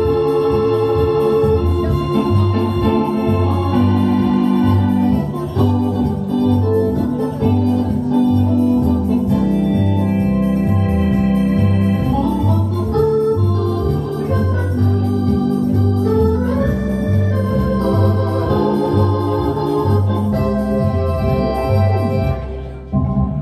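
Hammond organ playing live: held chords over a steady pulsing bass line. The music ends just before the close.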